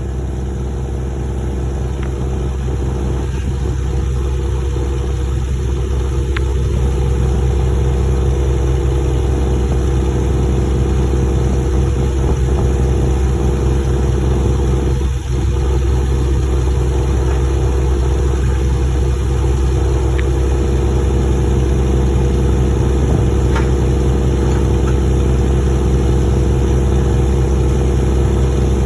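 Engine of a pile-driving rig running steadily, its level rising a little over the first several seconds and briefly dipping about halfway through. A few faint clicks sound, but there are no regular hammer blows.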